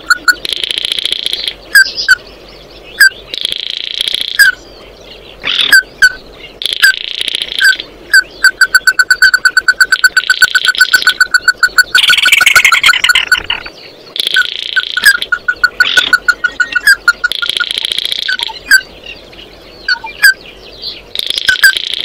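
Bird calls: series of short, sharp repeated notes, some runs fast and trill-like, with a harsher chattering burst about twelve seconds in.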